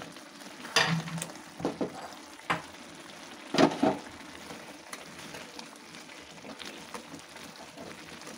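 Gajar halwa (grated carrots in thickened milk and sugar) cooking over a steady hiss on full flame in a large metal pan. A spatula stirs through it, scraping and knocking against the pan several times, loudest about three and a half seconds in.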